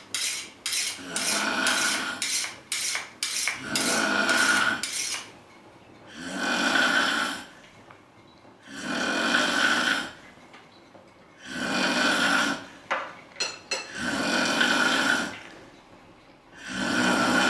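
A sleeping person snoring loudly, one long snore about every two and a half seconds. During the first five seconds, cutlery clinks and scrapes against dishes.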